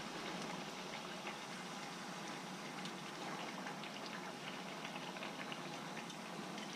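Corn tortilla frying in hot oil in a skillet: a steady, soft sizzle with many small crackles as it crisps into a taco shell.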